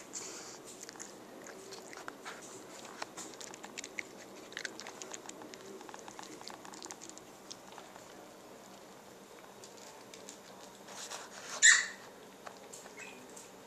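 A cat crunching dry kibble: a run of small, irregular crunches. Near the end, one loud brushing knock.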